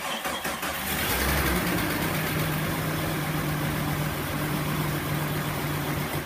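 Freshly built Jeep 4.7 stroker V8 starting for the first time: it cranks briefly, catches about a second in, then runs steadily and is shut off near the end.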